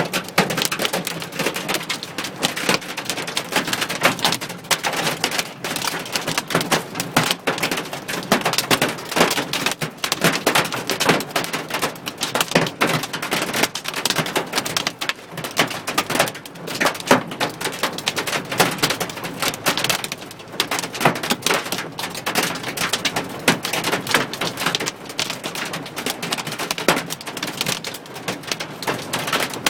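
Hail and rain drumming on a car's roof and body, heard from inside the cabin: a dense, unbroken clatter of sharp, irregular hits.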